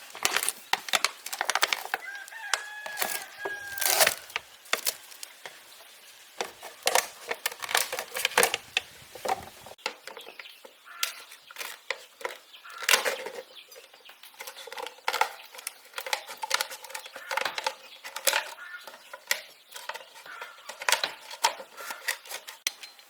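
Chickens clucking, with a rooster crowing once about three seconds in, among many sharp knocks and taps throughout.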